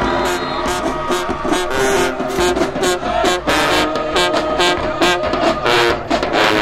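Brass band playing a tune with horns over a steady, driving drum beat.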